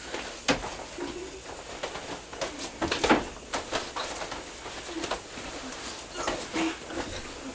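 Irregular knocks, thumps and clicks from people moving about in a small room, with a few short low hums between them; the loudest knock comes about three seconds in.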